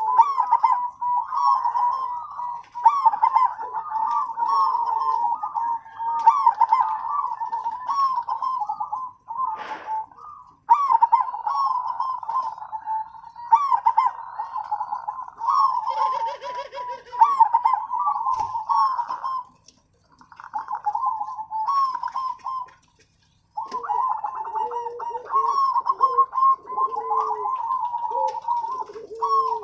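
Zebra doves (perkutut) singing: repeated phrases of quick, rolling coos, broken by short pauses, with a lower-pitched cooing voice joining in over the last several seconds.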